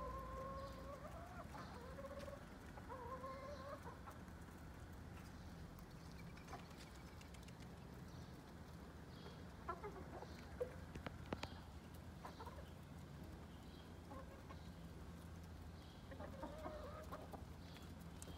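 Chickens clucking as they forage: a run of drawn-out calls at the start and more clucking near the end. A few sharp taps sound around the middle, over a low steady background hum.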